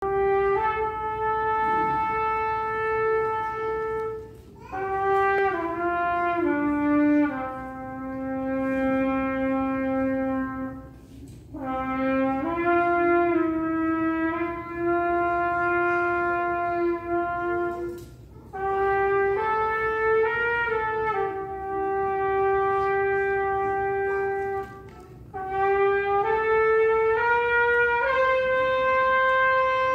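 Concert band of brass and woodwind instruments playing a slow passage of long held chords, in phrases of several seconds with short breaks between them.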